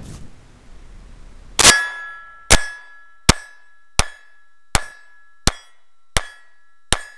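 Glock 30S compact .45 ACP pistol fired in a steady string, the first shot about one and a half seconds in, then about one shot every three-quarters of a second, eight in all. Each hit rings a steel plate target with a short two-pitch clang.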